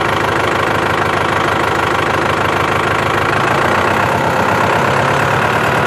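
Farm tractor's diesel engine idling steadily, with a fast, even beat of firing pulses.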